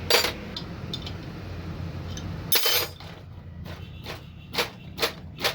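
Diesel injector nozzle on a hand-lever nozzle tester, spraying in short hissing bursts, about two a second, from around four and a half seconds in. A sharp metallic clink comes at the start, and a longer spray burst a little after two and a half seconds.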